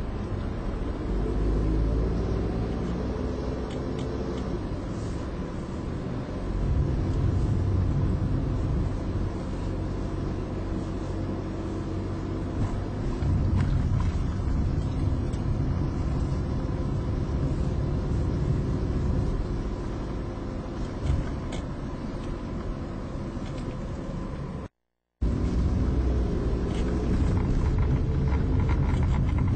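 Car engine and road rumble heard inside the cabin while driving, the engine pitch rising and falling with speed. The sound cuts out completely for a moment near the end.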